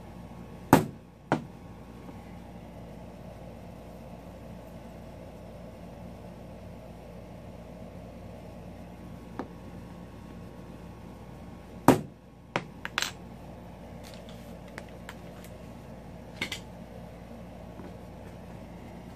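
Hammer striking a center punch on a metal part to set punch marks: two sharp knocks about a second in, then two more and a lighter tap about twelve seconds in, followed by a few light clicks of tools on the bench, over a faint steady hum.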